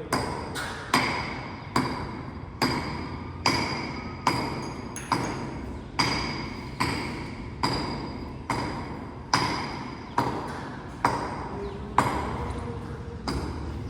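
Hammer blows on metal, struck at an even pace a little under once a second, each blow ringing and fading before the next.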